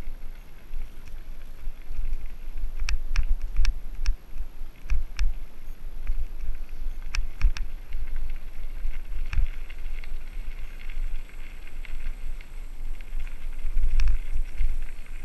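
Mountain bike riding down a rough trail: a constant low rumble of wind and jolting on the microphone, with a hiss from the tyres and a dozen or so sharp rattling clicks as the bike bangs over rocks and roots.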